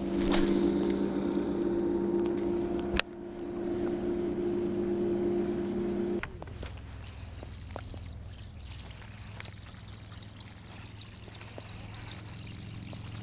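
A bass boat's motor humming steadily, cutting off abruptly about six seconds in and leaving a fainter, lower hum. A single sharp click about three seconds in.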